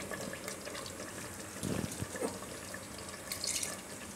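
Water poured in short splashes from a glass jar into curry in an aluminium pressure cooker.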